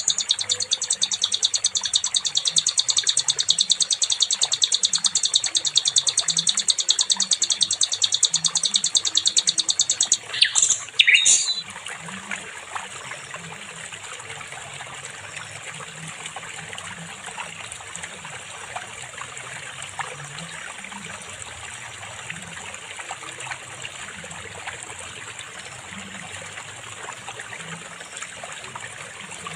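A songbird's rapid, high-pitched chattering trill, many notes a second, runs for about the first ten seconds and ends with a few sweeping notes. Then the song stops and a steady trickle of running stream water carries on alone.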